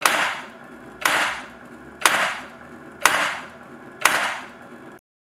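Cement mortar jolting table lifting and dropping a clamped three-gang prism mould onto its anvil once a second: five sharp knocks, each with a short ringing tail, stopping after the fifth.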